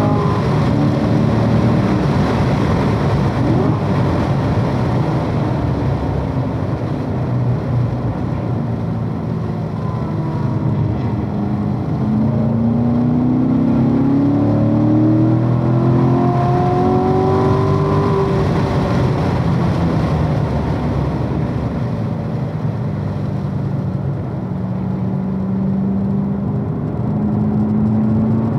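A C7 Corvette Stingray's 6.2-litre LT1 V8 at track pace, heard from inside the car. Its pitch starts high, drops as the car brakes, then climbs and falls again through the corners.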